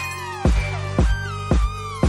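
Electronic background music with a steady, heavy kick-drum beat just under two beats a second under synth melody lines.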